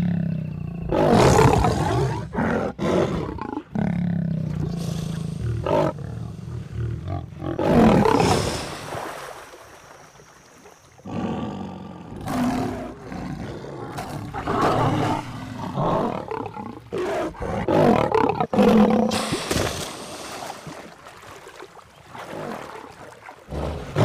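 Lions growling, snarling and roaring in repeated loud bursts during a fight with crocodiles. There is a short quieter lull about ten seconds in.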